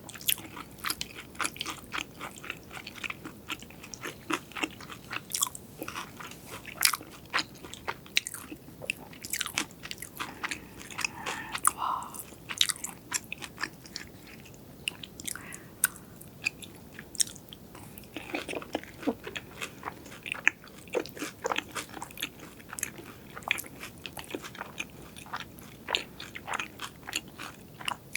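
Close-miked mukbang eating sounds: biting and chewing crunchy food, with a dense run of crisp, crackly crunches.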